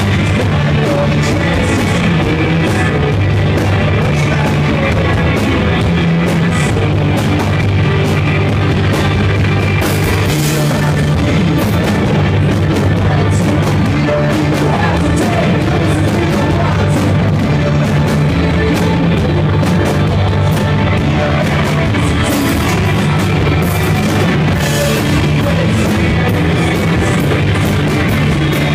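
A live rock band playing loud, with electric guitars, bass and drums, heard from close to the stage in a small club. Bass notes shift every second or so under a dense wash of guitar and cymbals.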